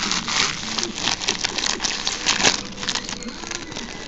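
Foil trading-card pack wrappers crinkling and tearing as packs are ripped open by hand, a dense run of sharp crackles that peaks about two and a half seconds in.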